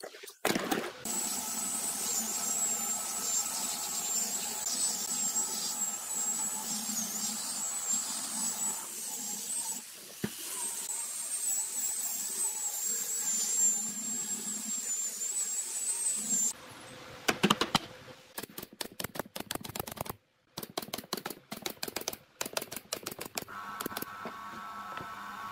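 Angle grinder fitted with a sanding disc running against pine boards: a steady high whine over a coarse rasp, easing briefly about ten seconds in. After about sixteen seconds the whine stops and a series of sharp clicks and knocks follows.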